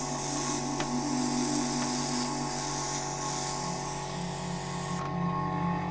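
An airbrush hissing as it sprays paint in short spurts, used to spray out the last paint left in its cup. The hiss stops about five seconds in.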